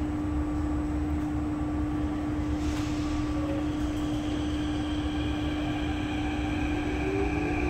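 SMRT CT251 metro train's onboard equipment humming steadily while the train stands. Near the end the traction motors start a rising whine as the train begins to pull away.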